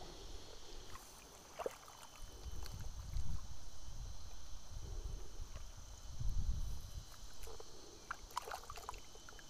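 Shallow muddy water sloshing as a round woven sieve is pushed and swirled through it by hand, in low swells about three and six seconds in. A steady high hum runs underneath.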